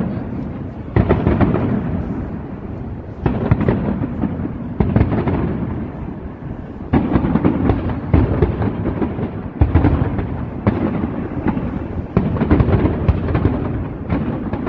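Distant fireworks display: a string of booms about every one to two seconds, each followed by a low rolling rumble.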